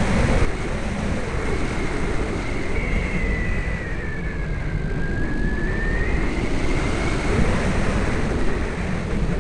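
Electric motor of a Sky Surfer RC plane whining in flight, its pitch dipping midway and rising again with the throttle, under heavy wind rush on the microphone.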